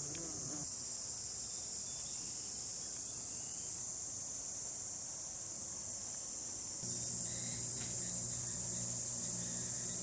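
Cicadas singing: a steady, high, shrill drone with no breaks. About seven seconds in, a low hum joins underneath and the overall level rises a little.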